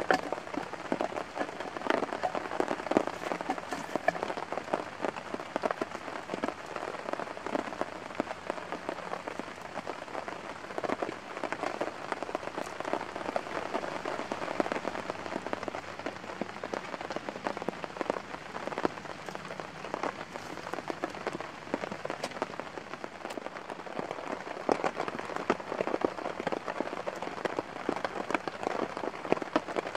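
Steady rain falling, with many individual drops ticking sharply close by.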